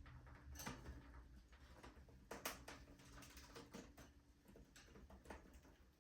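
Near silence with a few faint, irregular small clicks and taps, the loudest about two and a half seconds in, over a low steady hum.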